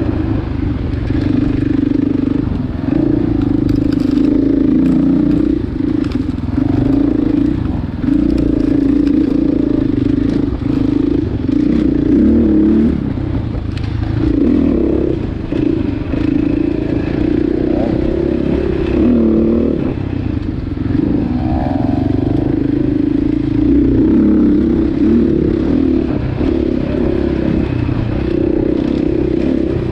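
Husqvarna FX 450 dirt bike's single-cylinder four-stroke engine running under constantly changing throttle on a trail ride, dipping in pitch briefly a couple of times near the middle, with light clatter from the bike over rough ground.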